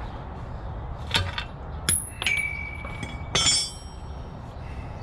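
Metal tools and bicycle bottom-bracket parts clinking against each other, four sharp knocks, some of which ring on briefly; the loudest is about three and a half seconds in.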